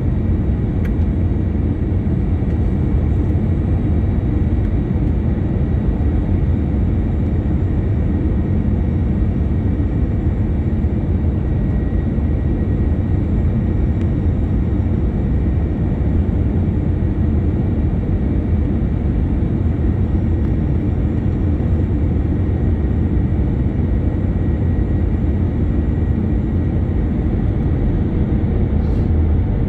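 Airbus A321-200 cabin noise on the landing approach: a steady low rumble of the jet engines and airflow, heard from inside the cabin, with a faint steady high tone above it.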